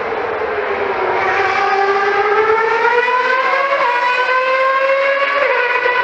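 Historic formula race car engine at high revs: a sustained high engine note whose pitch climbs slowly over a few seconds, then drops near the end.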